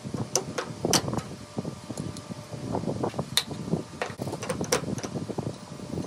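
Wooden bird-feeder kit pieces being handled on a workbench: irregular clacks and knocks as panels and dowels are picked up and set down, with rustling between them.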